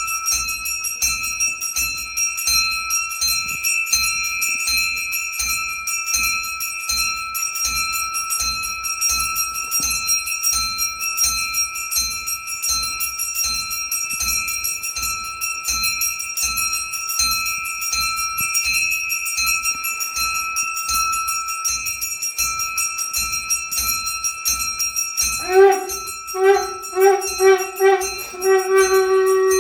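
A puja hand bell rung rapidly and steadily throughout. About 25 seconds in, a conch shell is blown, first in a few short blasts and then as one held note.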